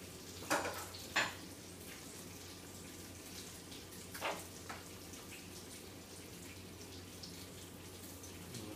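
A steady low hum and faint hiss, broken by four brief scuffs or taps: two in the first second and a half, two more about four seconds in.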